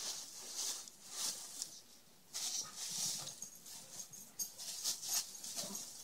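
Tissue paper rustling and crinkling in short, irregular bursts as a present is pulled out of a gift bag.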